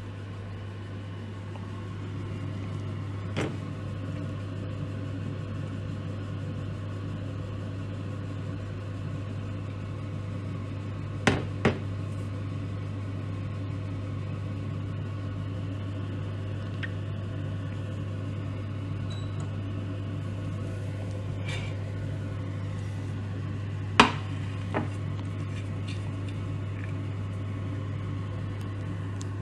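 Steady low electrical hum of a running kitchen appliance, with a few sharp knocks: one about three seconds in, a close pair about eleven seconds in, and the loudest about 24 seconds in.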